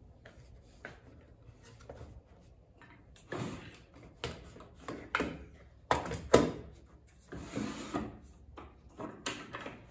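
Sliding scrapes and knocks from about three seconds in, as a plywood infeed table is shifted against a table saw and the saw's T-square rip fence is slid along its rail toward the blade. About half a dozen strokes, the loudest a little past the middle.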